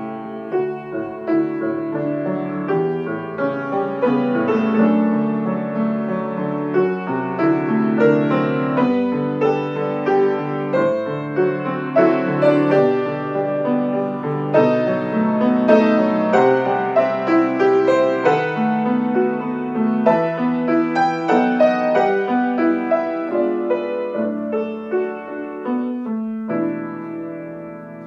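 Solo grand piano playing a romance, sustained chords under a melody line, growing softer near the end.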